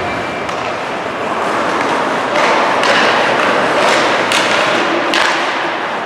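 Ice hockey play in a rink: a handful of sharp knocks and thuds of sticks, puck and boards over a steady crowd hum, echoing in the arena.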